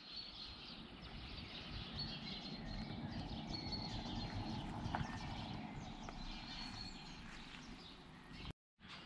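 Faint outdoor ambience: a low steady rumble with a few short, faint high chirps and a single click about five seconds in.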